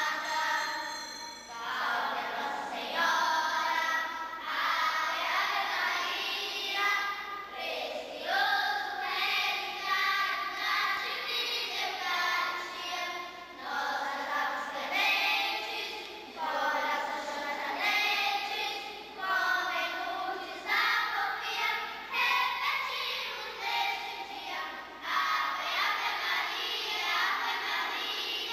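A group of young girls singing a hymn together, in phrases of about two seconds each with short breaths between them.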